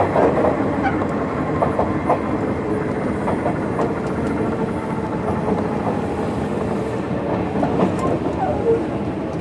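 Sotetsu New 7000 series electric train car with Hitachi GTO inverter running along the line, heard from inside the car: steady running noise with scattered clicks from the wheels over rail joints.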